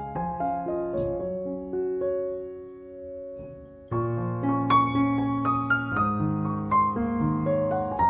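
Background piano music: a slow run of held notes that thins out and grows quieter, then fuller piano chords come in about halfway through.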